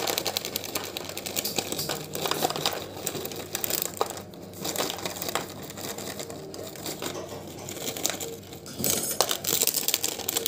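Crinkling of a plastic snack packet, with small crunchy snack pieces clicking and rattling as they drop into a lunchbox in irregular bursts.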